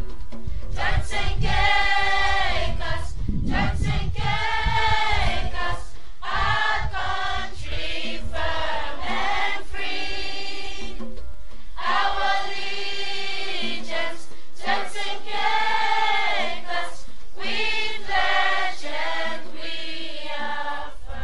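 Choral music: a choir singing long held phrases, fading down near the end.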